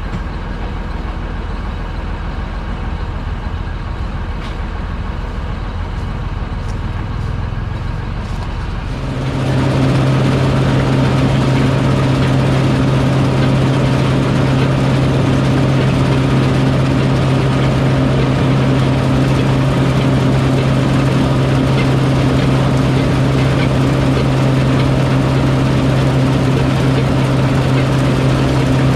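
A heavy farm machine's engine running steadily. About nine seconds in it gets louder and settles into a strong, steady hum.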